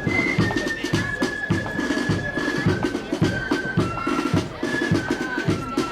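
Marching flute band playing: flutes carry a high melody in held, stepping notes over a steady beat of bass drum and snare drums.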